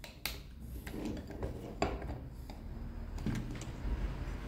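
Diecast metal scale model wheel loaders handled on a tabletop: small clicks and rubbing as the stiff bucket lift arms are worked by hand, with a sharp click about a quarter second in and another near two seconds.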